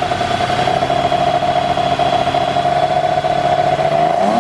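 BMW E34 M5 straight-six with individual throttle bodies and open velocity stacks, revved by hand at the throttle linkage and held at a steady high rpm, loud with intake noise. The revs drop away right at the end.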